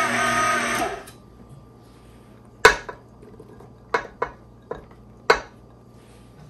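KitchenAid stand mixer running with its paddle, switched off about a second in. Then a spatula clacks sharply against a small ceramic bowl five times as dried dates and figs are scraped out into the mixer's steel bowl.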